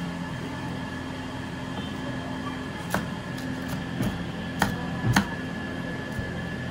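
Chef's knife slicing green chillies on a cutting board, a handful of sharp, irregularly spaced knocks of the blade against the board starting about 3 seconds in, over a steady background hum.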